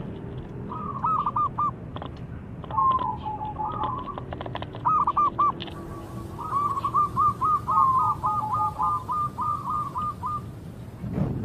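Zebra dove (perkutut) singing its cooing song: several short phrases of quick repeated notes, then a longer run of rapid coos that stops about a second before the end.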